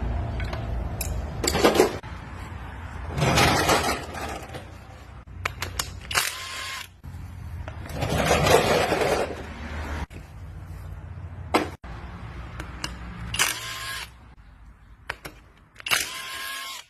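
Metal clinking and knocking, some strikes ringing briefly, with stretches of scraping in between, as of tools and engine parts being handled during an engine repair.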